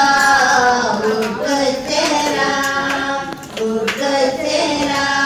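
High voices singing a devotional song in long, held notes, with some hand clapping, as part of a puja and kalyanam ceremony.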